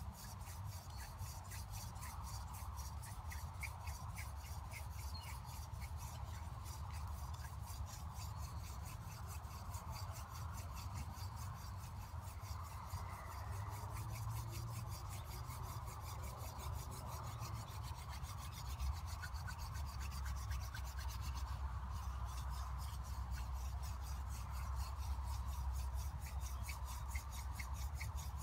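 Hand-drill friction fire: a wooden spindle twirled back and forth between the palms, its tip grinding into a wooden hearth board with a steady, rhythmic rasping as the hands rub along the spindle.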